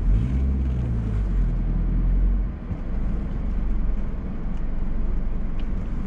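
Car engine and road noise heard from inside the moving car: a low steady rumble, with the engine note rising and falling over the first couple of seconds.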